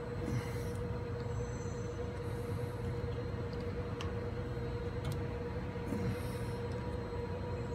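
A steady machine drone with a constant mid-pitched tone over a low hum, with a couple of faint clicks a few seconds in.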